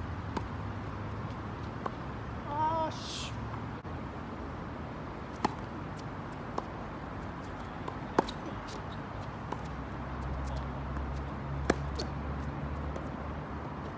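Tennis rally on a hard court: a tennis ball struck by rackets and bouncing, a string of sharp pops one to three seconds apart, the loudest three about five, eight and eleven seconds in. A low steady rumble sits underneath, and a brief wavering call comes about two and a half seconds in.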